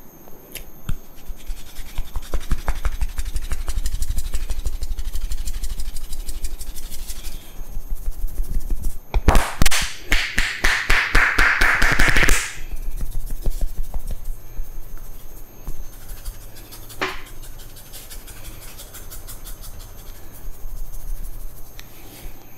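Hands rapidly tapping and rubbing a man's head during a barber's head massage, in a fast, even rhythm of strokes. About halfway through it grows louder and faster for a few seconds, with a scratchy rubbing of hair. A single sharp click comes later.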